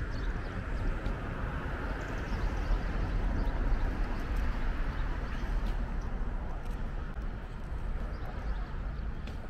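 Footsteps on pavement over a steady low outdoor rumble.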